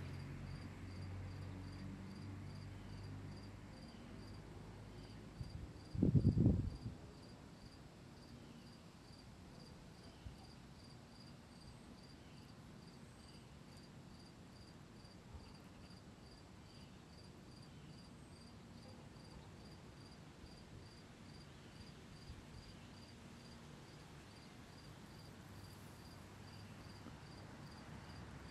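Cricket chirping steadily, a short high chirp repeated about three times every two seconds. A brief low thump about six seconds in is the loudest sound.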